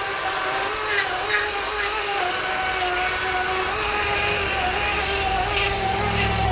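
EGO 18-inch 56-volt battery chainsaw cutting through a log, its motor and chain giving a steady whine that wavers slightly in pitch under load. A low rumble builds in near the end.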